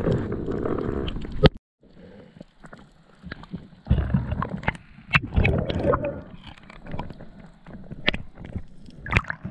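Underwater sounds of a spearfisher handling a speared fish and his gear: a loud rush of water that cuts off sharply about one and a half seconds in, then softer gurgling swells and a few sharp clicks and knocks.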